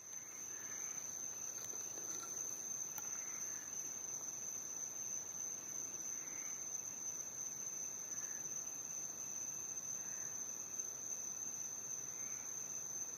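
Night insect chorus: a steady high-pitched trill that never breaks, with faint short chirps now and then underneath.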